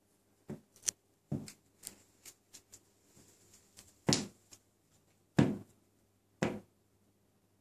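A British Shorthair cat's tail flicking and thumping on a wooden floor: about seven irregular knocks, the loudest two in the middle.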